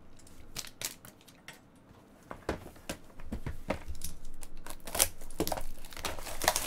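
Clear plastic wrapper of a trading-card pack crinkling and tearing as it is peeled open by hand, with scattered sharp clicks. Faint handling at first, much louder and denser from about halfway in.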